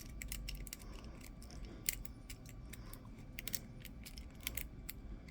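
Faint, irregular small metallic clicks and ticks of a lock pick working the pin tumblers of a cheap brass padlock, under tension from a tension wrench.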